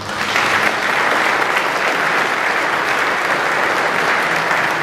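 A large seated audience applauding: steady clapping that starts suddenly and holds at an even level.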